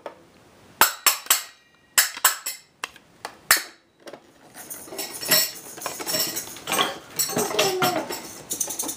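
Toy percussion instruments knocked and clacked together: a string of sharp, irregular clicks over the first few seconds, then a busier clatter and rustle of handling.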